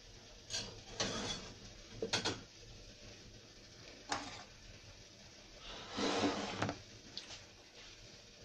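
Short knocks and clatter of kitchenware being handled as a cake plate is set down on top of a pot, then a longer scrape about six seconds in.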